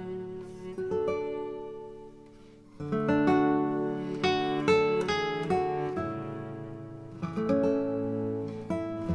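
Background music on acoustic guitar, plucked notes and strummed chords ringing out. It fades low about two seconds in and comes back louder a little before three seconds in.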